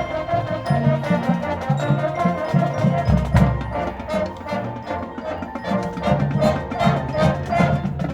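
A high school marching band plays its show music: sustained low notes under busier higher parts, with percussion striking a quick, steady rhythm.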